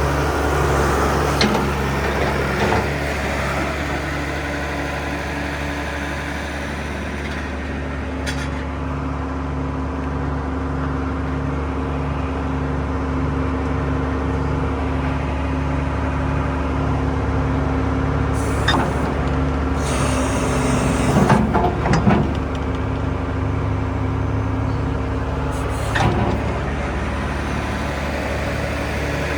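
A John Deere 710D loader backhoe's 115 hp diesel engine running steadily with a throbbing beat, broken a few times by short, sharp bursts of noise, the loudest a little past two-thirds of the way through.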